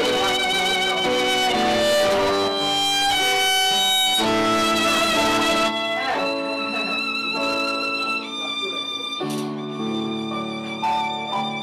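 Instrumental background music: a melody of held notes with vibrato over a chordal accompaniment, turning a little thinner and quieter about six seconds in.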